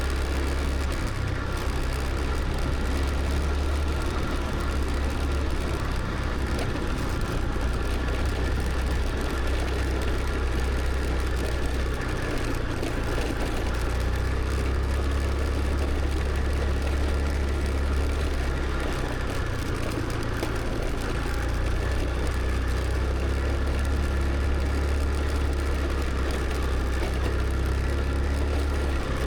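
Motor scooter riding along a road: a steady engine hum with a low rumble and road noise.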